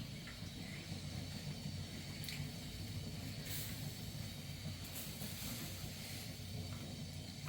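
Steady rain: an even, soft hiss with a low rumble underneath and a few faint drips.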